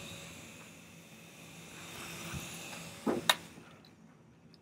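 Toy helicopter's small electric rotor motor whirring, a steady whine that slowly weakens, then two sharp knocks about three seconds in, after which the whirring stops.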